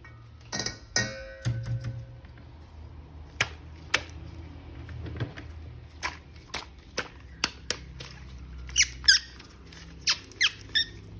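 Plastic toy and packaging being handled: scattered clicks and taps, then several short squeaks near the end.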